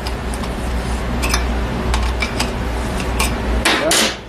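Metal clinks and ticks from hand tools and the threaded bearing adjusters being worked on a Ford nine-inch differential carrier: a few sharp taps spread out, then a louder scraping clatter near the end.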